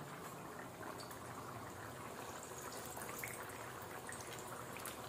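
Hot oil sizzling steadily as a methi puri deep-fries in a kadai, with a few light clicks.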